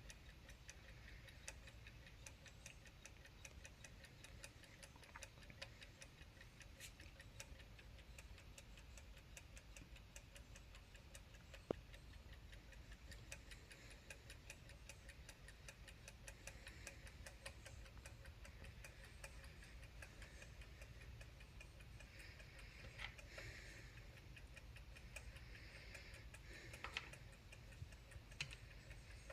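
Faint, steady ticking of a Yantar electromechanical wall clock's movement running, with a sharp louder click about twelve seconds in and a few more clicks near the end.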